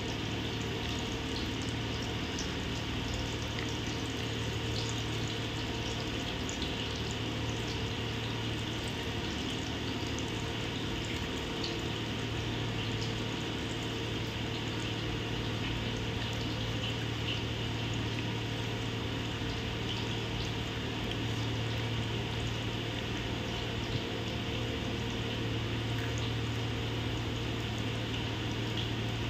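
Hot oil sizzling and bubbling steadily around potato and onion pakoras deep-frying in a steel kadai, with a steady low hum underneath.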